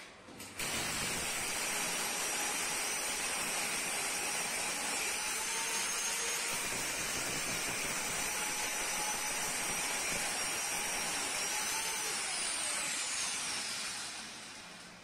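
A corded handheld electric power tool runs steadily with a motor whine as it is worked along the gypsum plaster at the ceiling line. Near the end it is switched off and its whine falls away as it spins down.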